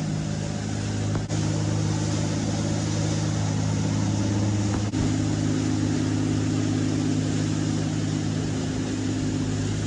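Inboard diesel engines of a 35-foot sportfishing boat running at cruising speed: a steady drone over the rush of wake and wind, shifting slightly in pitch about one second and five seconds in.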